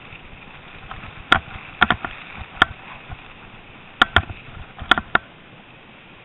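Mountain bike riding downhill over snow: about eight sharp, irregular knocks and clacks, some in quick pairs, as the bike jolts over bumps, over a steady hiss.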